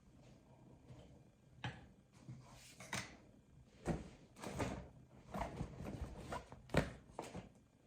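Rustling and knocking of product packaging being handled and pulled from a bag, in a run of short, irregular noises with a sharper knock about seven seconds in.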